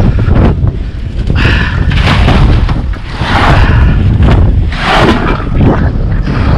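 Strong wind buffeting the microphone in a heavy, uneven low rumble, with several louder rustling surges.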